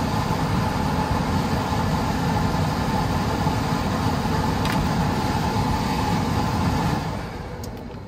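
Goodman furnace's indoor blower running with the cabinet open: a steady rush of air with a faint hum, easing down near the end. The system is running on a call for cooling after the low-voltage short was repaired.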